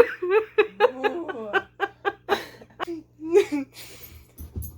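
Two women laughing uncontrollably in short gasping bursts, their wheezing breaths setting each other off, with a snort among them.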